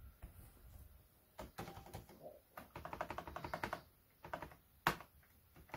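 Computer keyboard keys being pressed: scattered clicks, a quick run of keystrokes about three seconds in, and one sharper, louder click near the end.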